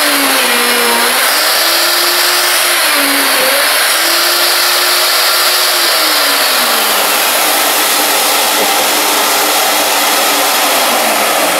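Plunge router running with its bit plunged into a hardwood bench top, along with a dust-extraction vacuum on the hose. The motor pitch dips briefly twice in the first four seconds, then sinks more slowly from about halfway through as the bit bogs in the cut. The bit is labouring and heating, enough that it is about to be changed.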